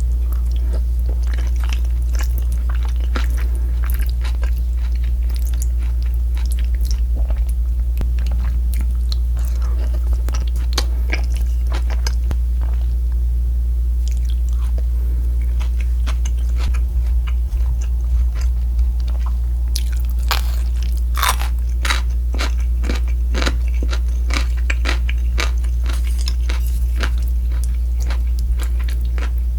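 Close-miked eating of crispy fried pork: crunchy bites and wet chewing in quick irregular clicks, busiest about two-thirds of the way in, over a steady low hum.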